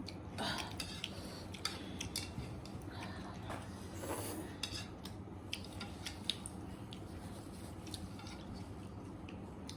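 Close-miked eating of noodle soup and chilli pork: chewing and mouth sounds, with scattered small clicks of cutlery against a bowl or plate.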